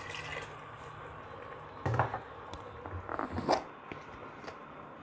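Watery masala poured from a mixer-grinder jar into a pot of curry, with a few short knocks and scrapes of the jar and a steel ladle against the aluminium pot.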